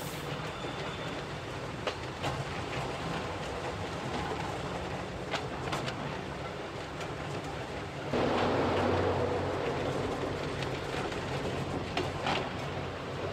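A narrow-gauge rack railway train running along the line, heard from the driver's cab: a steady running hum with scattered sharp clicks from the wheels and track. About eight seconds in, a louder rushing surge comes in and eases off over the next couple of seconds.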